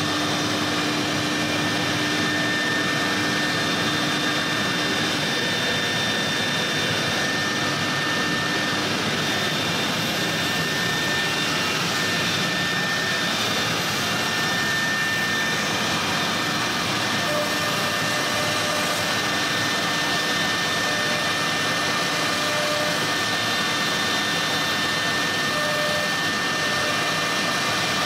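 CNC router's high-speed electric spindle running and boring into the edge of a wooden door. A steady high whine sits over a constant rushing noise, with no break.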